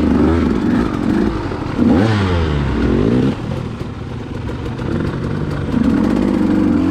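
Two-stroke KTM enduro dirt bike engine revving up and down under the rider's throttle while riding, with a sharp rise in revs about two seconds in and again near the end.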